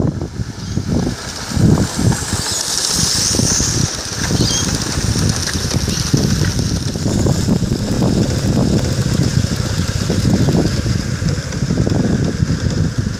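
Garden-scale live steam LMS Black 5 locomotive and its carriages running over the crossovers, with a hiss as the engine passes close about two to four seconds in. Wind buffets the microphone with irregular low thumps.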